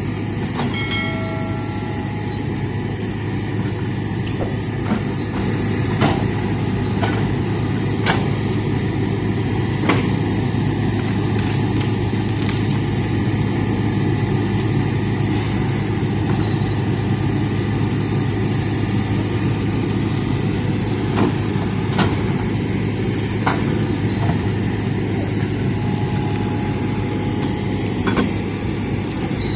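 Hitachi excavator's diesel engine running steadily with a deep hum, with a dozen or so short sharp knocks scattered through.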